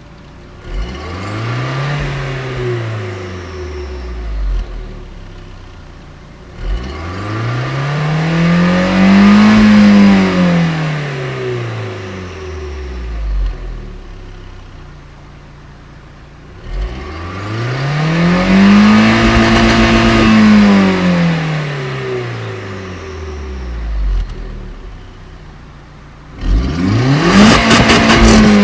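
Audi A4 B5's 1.8-litre turbocharged four-cylinder engine, running through a catless test pipe, revved three times in long sweeps. Each time the pitch rises, holds briefly at the top and falls back to idle, the first rev lower than the next two. Near the end a fourth rev starts abruptly, with a rapid crackle running through it.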